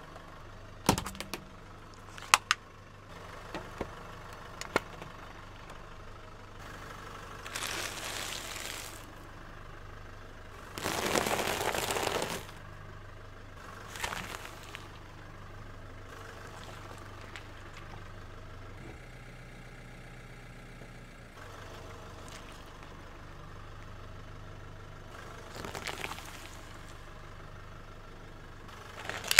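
A car's tyre rolling slowly over objects on asphalt, crushing them: several sharp cracks and crunches, with a few longer bursts of crushing noise, the longest about 11 seconds in. A car engine idles underneath with a low steady hum.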